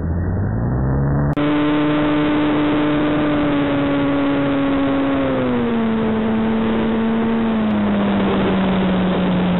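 Electric motor and propeller of a ParkZone Sukhoi SU-29MM RC plane whining in flight, with wind rushing over the onboard microphone. The pitch climbs in the first second or so, holds, then drops in two steps later on as the throttle comes back.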